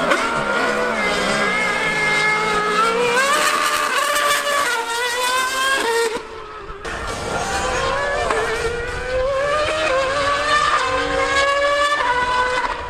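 High-revving V8 engine of a Mercedes Formula One car and a 1000cc Yamaha R1M superbike accelerating hard from a standing start. The engine notes climb and drop back several times through rapid upshifts. There is a brief dip about six seconds in, then more full-throttle acceleration as they pass.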